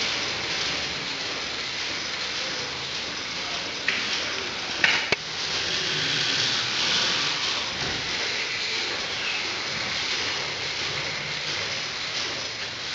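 1894 Hathorn Davey steam pumping engine running with a steady hiss and mechanical clatter, with a few sharp clicks about four to five seconds in.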